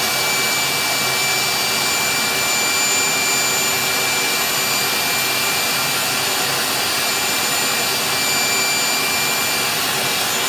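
Electric hot-air blower running steadily: a rush of air with a high, even whine. It is heating the washing machine impeller's rusted screw so that thermal expansion loosens it.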